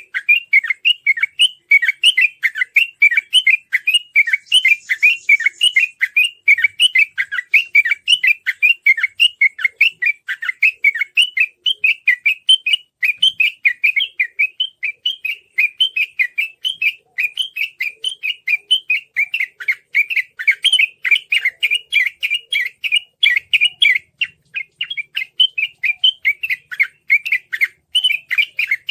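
Sooty-headed bulbul (trucukan) singing a fast, unbroken chattering song ('ropel'), about four to five short sweeping notes a second.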